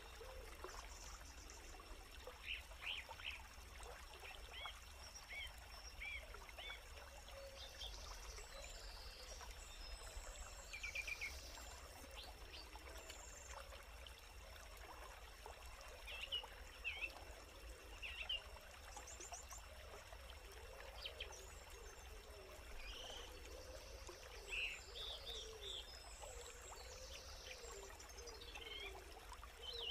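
Birds chirping and calling in short, scattered bursts over a faint steady hiss and low hum.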